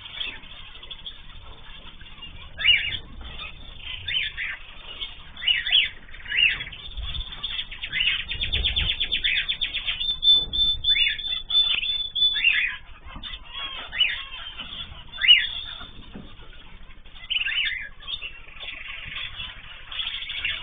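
Ornamental cage birds (cockatiels, zebra finches and canaries) calling: short sharp chirps and calls every second or so, with a fast trilling run of notes about halfway through.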